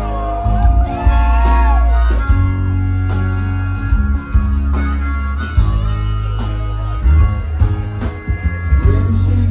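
A live band playing, led by a harmonica whose notes bend and slide, over a steady bass and drums.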